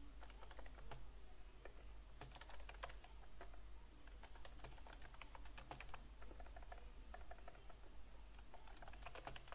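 Typing on a computer keyboard: a quick, irregular run of faint keystrokes.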